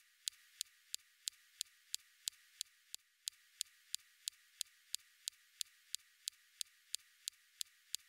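Perseverance rover's SuperCam laser shots striking a rock on Mars, picked up by the SuperCam microphone: a steady run of sharp clicks about three a second over a faint hiss. The clicks vary in strength, and those differences help reveal the structure of the rock.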